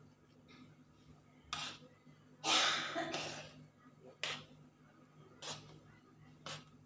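Metal spoon scraping and knocking against an aluminium pan while stirring thick coconut milk, in several short strokes. The longest and loudest scrape comes about two and a half seconds in. A faint low hum runs underneath.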